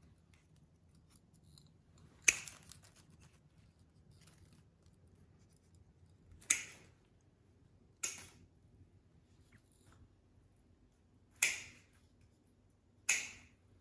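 Sharp florist's snips cutting through woody olive stems: five crisp snips, a second or several apart.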